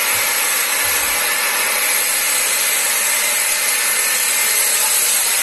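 Dump truck running with its bed raised, tipping a load of sand: a steady, hissing mechanical noise with little bass and no change in level.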